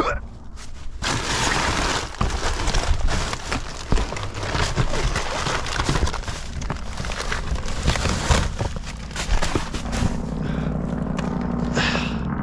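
Hands rummaging through boxes of packaged snacks and drinks in a dumpster: dense rustling, scraping and knocking of cardboard and packaging. Near the end this gives way to a steady low hum.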